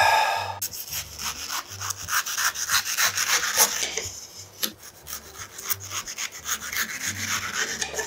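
Kitchen knife slicing through a ripe mango: a long run of rasping, scraping strokes as the blade saws through skin and flesh. A brief loud vocal sound from the eater comes at the very start.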